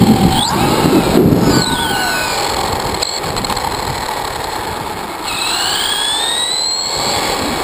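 Axial Exo RC buggy's Tekin 4600 four-pole brushless motor whining, its pitch sliding up and down with the throttle, over the rough rumble and rattle of the buggy running on pavement. The rumble is heaviest in the first second and a half. About five seconds in, a fresh rising whine comes in as the buggy speeds up again.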